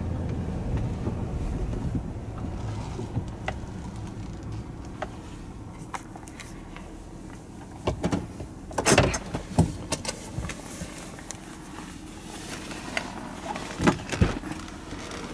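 Vehicle engine running, heard from inside the cab, its low hum fading over the first few seconds as the vehicle slows. Then several sharp clicks and knocks about eight to ten seconds in and again near the end.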